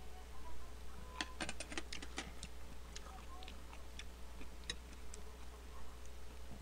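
Light clicks and taps of a metal spoon against a glass bowl of rice. A quick cluster comes about a second in, then scattered single ticks, over a low steady hum.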